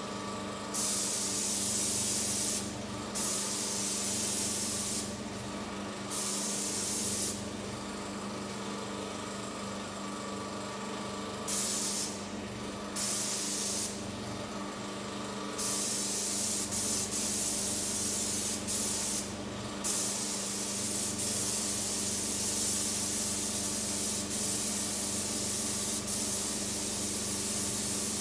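Paint spray gun hissing in repeated bursts as the trigger is pulled and released, short spells at first, then longer and nearly continuous in the second half, over a steady low hum.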